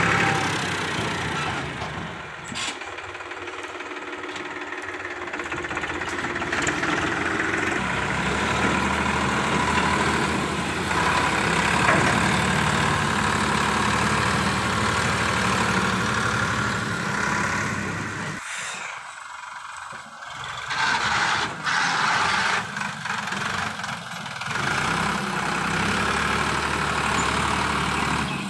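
Diesel tractor engine running steadily at low speed with a trolley hitched behind. About eighteen seconds in the deep engine note drops away and a higher, noisier sound takes over.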